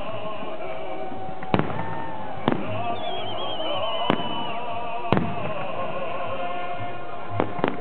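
Aerial firework shells bursting in a salute: five sharp bangs, irregularly spaced about a second or two apart, with music playing continuously beneath them.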